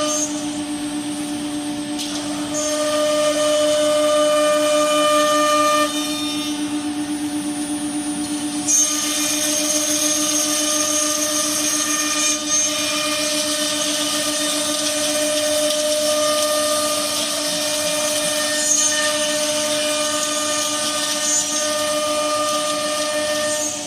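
CNC nesting router's spindle running with a steady whine; about nine seconds in a louder hiss joins it.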